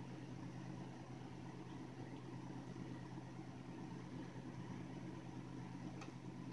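Steady low mechanical hum with a faint hiss, like a household appliance or fan running, and one faint click near the end.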